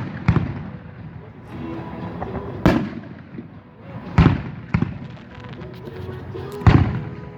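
Fireworks exploding: about five sharp bangs, spaced a second or two apart, each echoing afterwards.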